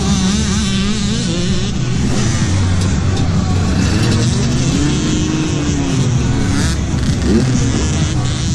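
A row of dirt bike engines idling together at a race start line, with a bike revving up and falling back now and then, notably about four to five seconds in and again near the end.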